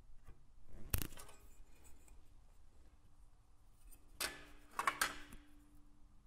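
Sharp clicks and light knocks of hand tools and a small piece of sheet metal being handled on a workbench. One comes about a second in, then a quick cluster of several around four to five seconds in, followed by a faint ring.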